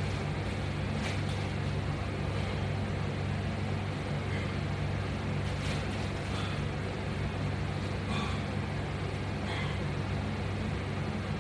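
Steady low hum with faint short squeaks or clicks every second or two, from resistance bands and their metal attachment hardware being worked through repetitions.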